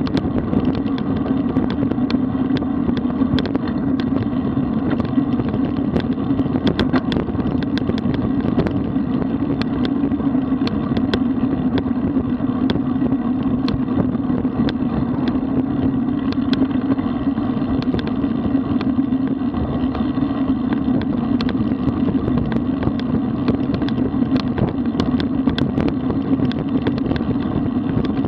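Road bike rolling along a paved road: a steady rumble of tyres and road vibration, with frequent small rattles and clicks scattered through it.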